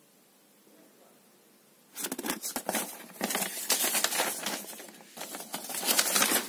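Paper instruction leaflet rustling and crinkling as it is handled and folded in a cardboard box, starting about two seconds in.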